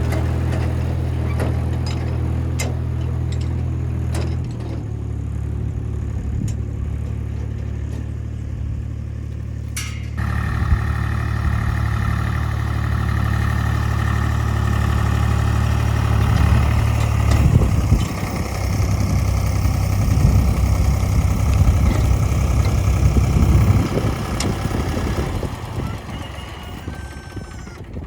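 An engine running steadily with a low, even hum. It turns rougher and louder from about ten seconds in and fades out near the end.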